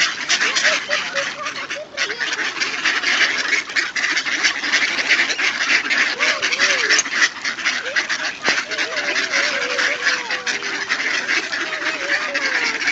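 Large flock of mallard ducks calling all at once: a dense, unbroken clamour of many overlapping quacks.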